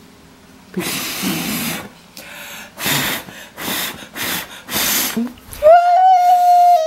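Breath blown in about seven short puffs at lit birthday-cake candles, each puff a breathy hiss, putting the candles out. Near the end a single high note is held for about a second.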